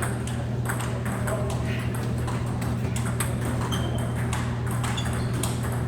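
Table tennis balls clicking off paddles and the table in play, many sharp irregular clicks over a steady low hum.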